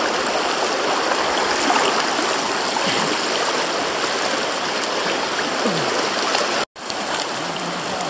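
River rapids rushing steadily, shallow water pouring and churning over rocks. The sound cuts out for an instant about two-thirds of the way through.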